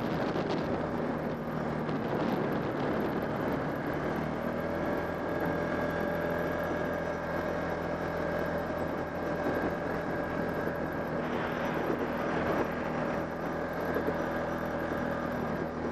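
Off-road vehicle engine running at a steady speed as it drives along a dirt track, heard from on board, with an even hum and a constant rumble of noise.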